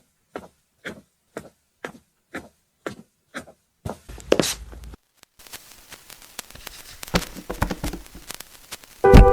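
Steady clock-like ticking, about two ticks a second, for nearly four seconds. Then comes a short rushing swell, followed by a crackling noise full of clicks. A loud hit sounds near the end, as a sustained musical chord begins.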